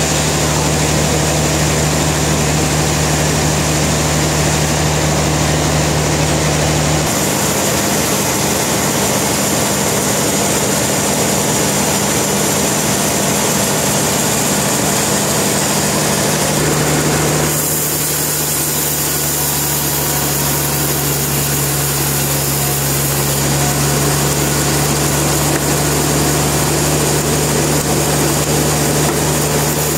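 Sawmill machinery running with a loud, steady engine-like drone, its tone changing abruptly twice.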